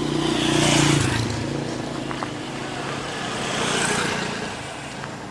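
Road vehicles passing close by: one swells up and fades about a second in, its engine note dropping as it goes, and a second passes near four seconds.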